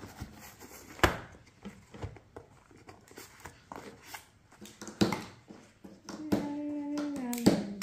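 Plastic marker pens clicking and knocking against each other as they are handled in their case, with sharp taps about a second in and again around five seconds. Near the end, a long steady vocal note lasting about a second and a half, dipping slightly as it ends.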